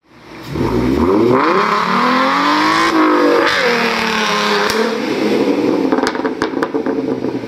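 Car engine revving hard in a burnout. Its pitch climbs, drops briefly about three seconds in, and climbs again, then it runs on at high revs with a few sharp clicks near the end.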